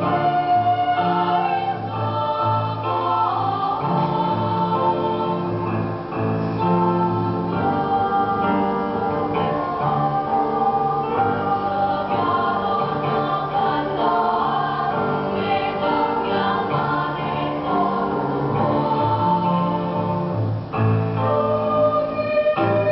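Junior high school choir singing in parts, holding sustained chords that shift from note to note.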